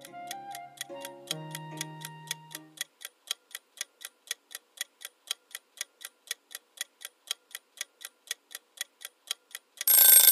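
Clock-ticking sound effect for a countdown timer, about four ticks a second, with the tail of a light background tune that stops about three seconds in. Near the end a loud alarm bell starts ringing, signalling that the time is up.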